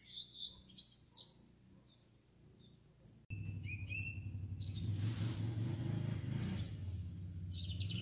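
Songbirds chirping and singing in short calls. About three seconds in, a loud, low rumble starts suddenly beneath the birdsong and stays.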